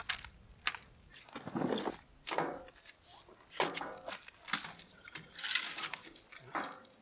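Split firewood chunks being set and stacked into a small folding steel stove: a series of irregular wooden knocks and clattering rattles against the thin metal walls.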